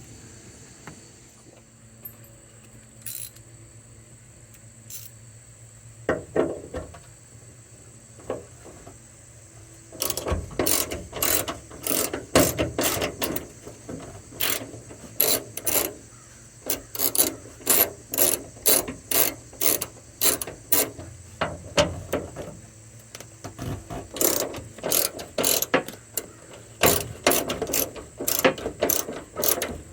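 Ratchet wrench with a 10 mm socket clicking as the factory hood bolts are loosened: a few single clicks at first, then, about a third of the way in, long runs of quick clicks at two to three a second, broken by short pauses.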